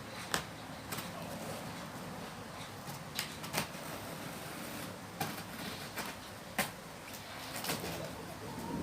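Scattered sharp clicks and taps from handling and opening a cardboard box, about eight spread irregularly over several seconds, over a steady background hiss.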